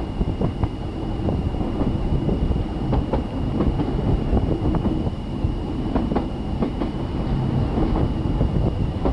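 Narrow-gauge passenger train running along the track, heard from on board: a steady low rumble with irregular clicks of the wheels over the rail joints, and a thin high whine.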